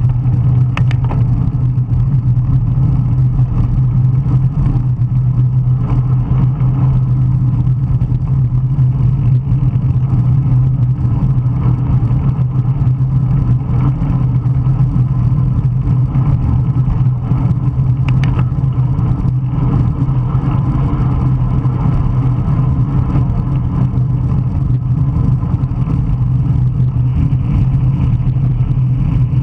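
Loud, steady wind buffeting the microphone of a camera mounted on a racing bicycle, a low rumble that never lets up.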